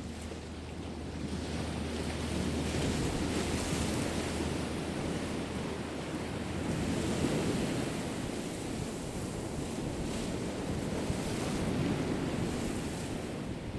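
Sea waves washing onto the shore with wind buffeting the microphone, the surf swelling and easing every few seconds.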